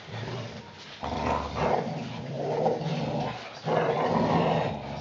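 Dogs growling in play during a tug-of-war over a toy: two long, low growls, the first starting about a second in, the second just after it and lasting until near the end.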